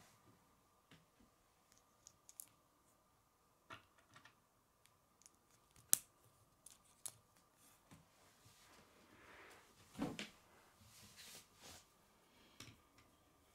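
Plastic K'nex connectors and rods being handled and snapped together: scattered small clicks and taps, one sharper click about six seconds in and a louder cluster of clacks around ten seconds in.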